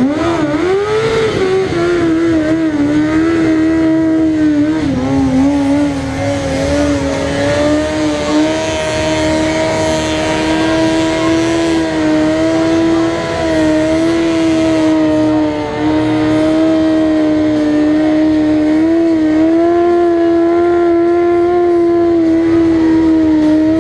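Honda CBR600's inline-four engine held at high revs during a burnout, the rear tyre spinning against the asphalt. The revs climb sharply in the first second, then hold nearly steady, wavering slightly.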